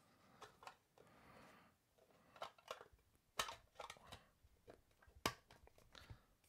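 Faint, scattered clicks and taps of a diecast model car and its plastic packaging being handled on a tabletop, the sharpest tap about five seconds in.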